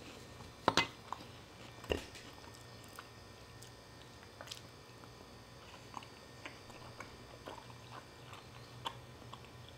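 Quiet, close-miked chewing of ravioli and garlic bread, with small wet mouth ticks. A steel fork clinks sharply against the plate twice about a second in and again near two seconds.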